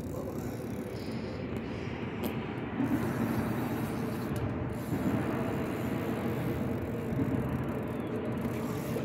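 Steady rumble of road traffic crossing the bridge overhead, a little louder from about three seconds in.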